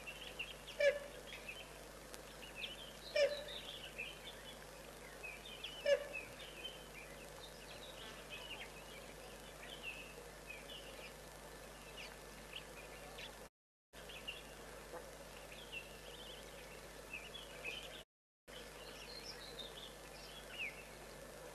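Birds calling: four loud, sharp single calls in the first six seconds over steady, scattered high chirping throughout. The sound cuts out completely twice for a moment in the second half.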